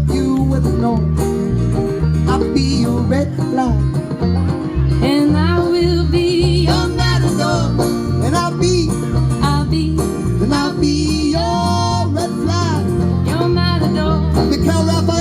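A live band playing an instrumental break in a country-style song: a lead line with bending, sliding notes over a steady bass line.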